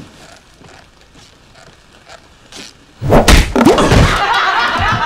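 Near-quiet room sound, then about three seconds in a sudden loud, heavy thump from the film's soundtrack, with louder sound going on after it.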